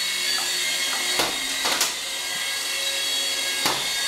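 Sky Force Stunt Copter toy twin-rotor RC helicopter in flight, its small electric motors and rotors giving a steady high whine. A few sharp clicks break in, about a second in, twice near the middle, and near the end.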